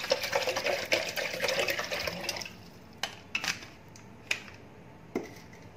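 Water poured from a plastic bottle into a plastic blender jar, a steady splashing fill that stops about two and a half seconds in. A few light clicks and knocks follow.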